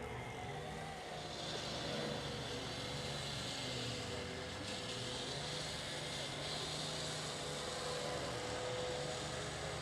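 Medium amphibious rescue vehicle's engine running steadily: a constant drone with a hiss that grows a little about a second and a half in.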